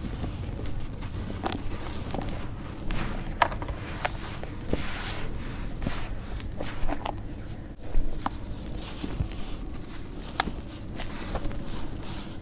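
Dry sand cement being crushed by hand: gritty crumbling with many sharp crackles as the lumps break, and a soft hiss of fine powder pouring through the fingers now and then.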